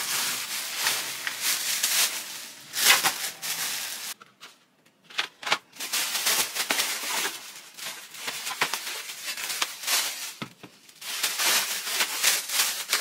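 Thin plastic grocery bags rustling and crinkling as groceries are taken out of them, with a few sharp clicks and knocks of items being handled. There is a brief quieter pause about four seconds in.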